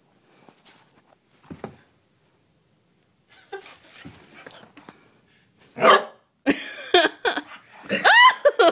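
A basenji giving several short pitched calls in quick succession in the second half, the longest rising and falling in pitch near the end, after a quieter stretch with a single knock.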